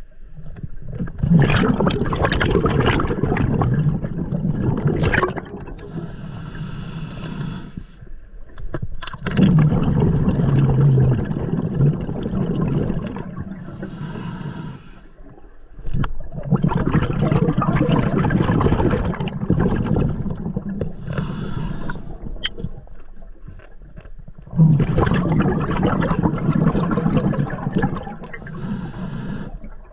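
Scuba diver breathing underwater through an open-circuit regulator: short hissing inhalations through the second stage alternate with long bubbling exhalations, about four breaths, each exhale lasting roughly four seconds.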